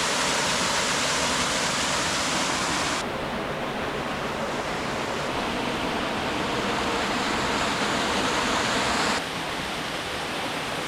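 Waterfall: a steady rush of falling water. The rush changes abruptly in tone and level about three seconds in and again near nine seconds.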